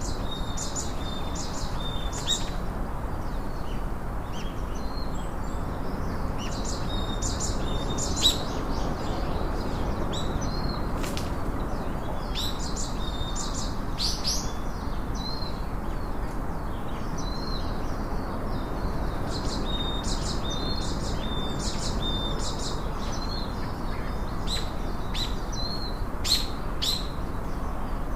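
Small birds chirping and twittering repeatedly, with short high notes and brief whistles, over a steady low background hiss.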